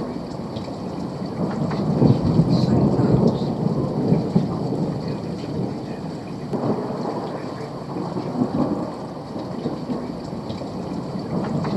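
Thunder rumbling over steady rain, the rumble swelling about two seconds in and again past six seconds.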